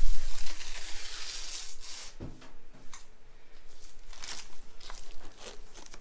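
Plastic packaging crinkling and tearing as it is handled and pulled off, loudest in the first two seconds, then softer rustles and small crackles.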